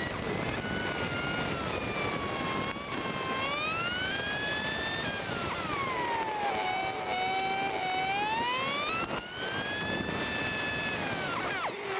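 Motorcycle engine whine, its pitch gliding slowly up and down over a few seconds, over a steady hiss of wind and road noise.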